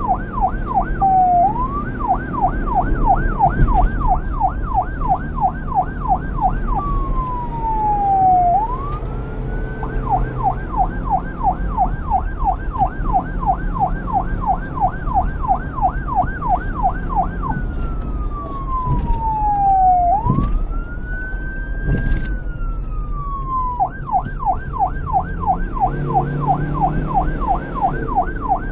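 Police car electronic siren cycling between a fast yelp, about four warbles a second, and a slower wail that falls and rises, twice, before going back to the yelp. A low rumble runs underneath.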